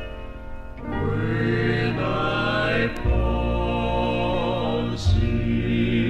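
Gospel vocal group singing slow, held chords in close harmony with vibrato, over a bass note that changes about every two seconds.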